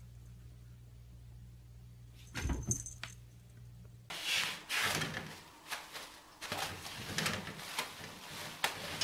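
A cat pawing at a sliding closet door, knocking it with a brief metallic rattle about two and a half seconds in. From about four seconds on comes a louder run of rustling with many light clicks and clatters, as a kitten scrabbles about a bathroom floor.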